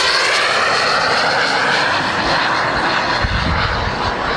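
Turbine engine of a radio-controlled model jet in flight: a loud whine that dips and then rises in pitch, giving way to a steady rushing noise.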